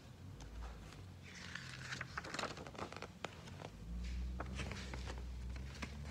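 CD packaging being handled: plastic crinkling and rustling, busiest a second or two in, with several sharp clicks.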